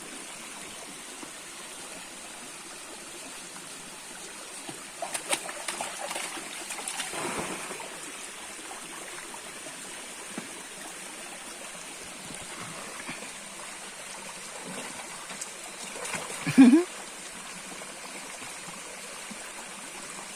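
Stream water flowing steadily, with splashing about five and seven seconds in. Near the end comes a brief loud cry, the loudest sound.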